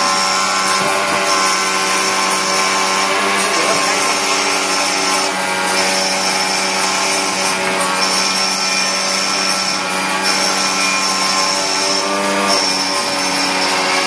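Automatic key-cutting machine running: a steady hum and whine of its motors, with a high hiss that comes and goes about every two seconds.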